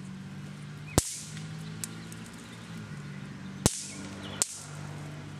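Throw-down snap pops cracking: three sharp pops, about a second in, near the middle and shortly after, with a fainter snap between the first two. A steady low hum runs underneath.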